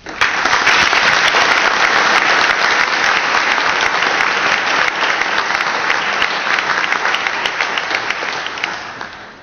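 Audience applauding, breaking out suddenly and dying away near the end.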